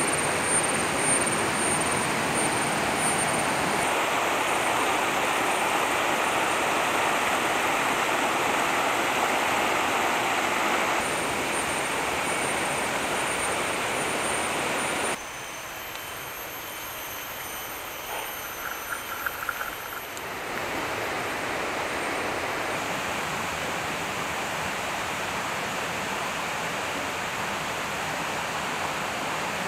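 Steady rush of a shallow, rocky river running over boulders. It drops quieter for a few seconds past the middle, then rises again.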